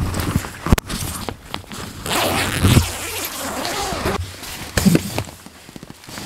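A zipper on a rooftop tent's nylon door being worked, with the tent fabric rustling and a few sharp handling clicks and knocks.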